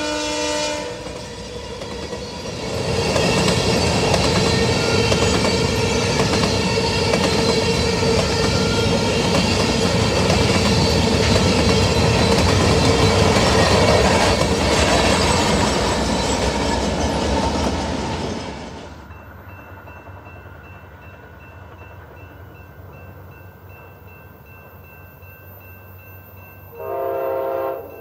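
BNSF freight train of covered hopper cars passing close by: a horn chord dies away about a second in, then a loud, steady rumble and clatter of the cars rolling past, with a locomotive in the consist going by about halfway through. The train sound stops abruptly about two-thirds of the way in, and near the end a short horn chord sounds briefly.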